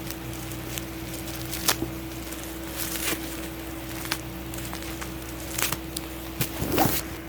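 Phone packaging being worked open by hand: scattered clicks and crinkles, growing busier and loudest near the end, over a steady low hum.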